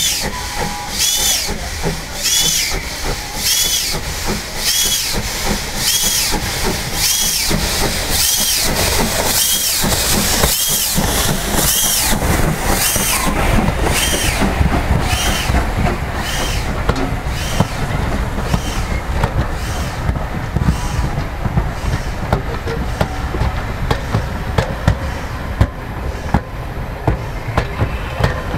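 Small steam tank locomotive working past, its exhaust chuffing in an even beat a little over once a second, loudest as it passes and fading away after it. The carriages then roll by with a steady rumble and scattered ticks of the wheels on the rails.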